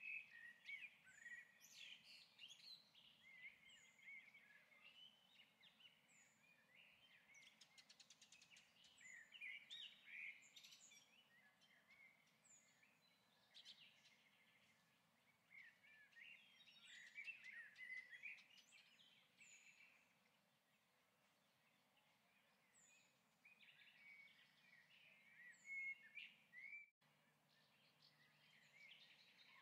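Faint birdsong: many short chirps and trills, with a thin high note repeating every second or two. The sound drops out for an instant near the end.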